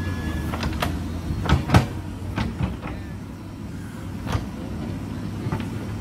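JCB backhoe loader's diesel engine running steadily under load while the backhoe arm digs and swings, with a run of sharp knocks and clanks from the bucket and rocky ground, the loudest just under two seconds in.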